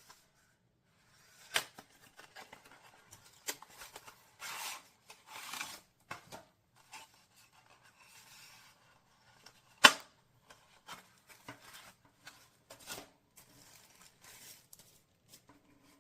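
Handling noises: several sharp clicks, the loudest about ten seconds in, between short bursts of rustling.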